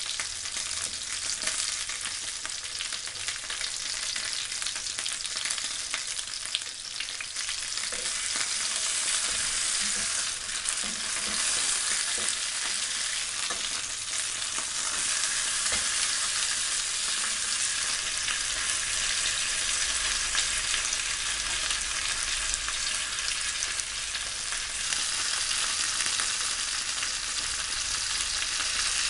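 Chicken leg quarters sizzling steadily in hot oil in a nonstick frying pan, with a few light clicks of metal tongs turning the pieces around the middle.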